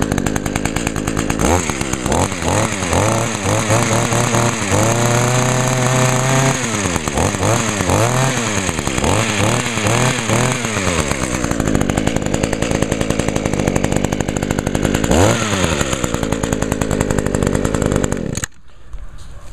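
Echo HC-150 hedge trimmer's small two-stroke engine running just after a cold start, revved up and down repeatedly, then cutting off suddenly near the end.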